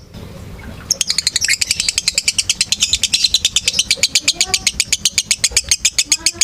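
Lovebird in a long unbroken chattering song ('ngekek panjang'): a fast, even run of sharp high chirps, about ten a second, starting about a second in.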